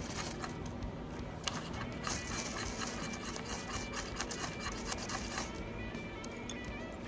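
Rapid, repeated scraping strokes of a knife spine against a ferrocerium rod, struck to throw sparks for a fire. The strokes come thickest from about two seconds in to near the end.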